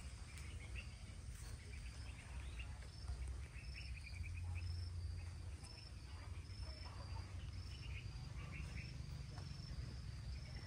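Outdoor insect chirping, a short high-pitched chirp repeated about twice a second, over a low steady rumble.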